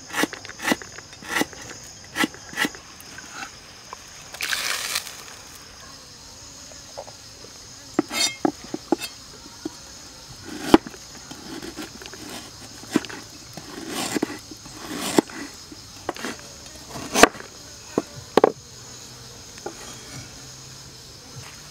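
Cleaver knocking on a wooden chopping board as galangal root is sliced: a quick run of even chops at the start, then scattered single strokes, the loudest a little before halfway and about three quarters through. Insects buzz steadily behind.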